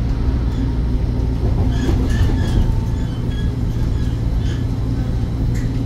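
Toronto Rocket subway train running, heard from inside the car: a steady low rumble of wheels and running gear.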